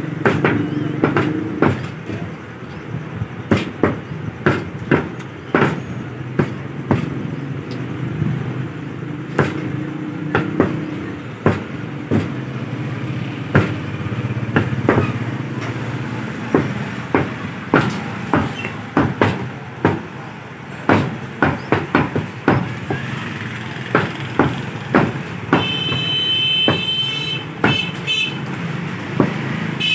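Heavy meat cleaver chopping boneless buffalo meat into cubes on a wooden log chopping block: sharp, irregular chops, over a steady low hum.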